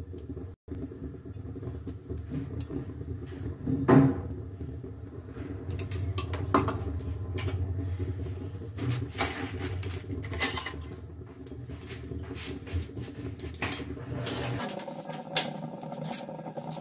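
Kitchen pots and utensils knocking and clinking now and then, with a louder knock about four seconds in, over a steady low hum that stops near the end.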